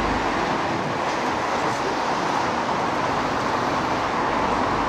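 Steady road traffic noise from vehicles on the bridge roadway, a constant even rush.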